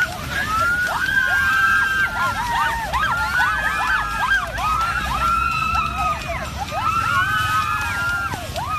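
Crowd cheering and shrieking: many high voices whooping at once, their pitches rising and falling over each other without a break.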